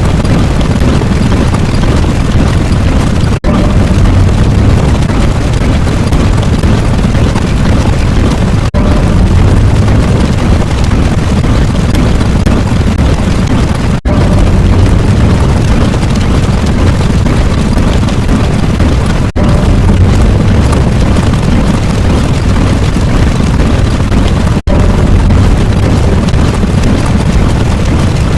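Loud, continuous explosion-like rumble sound effect, heaviest in the bass, looping with a brief break about every five seconds.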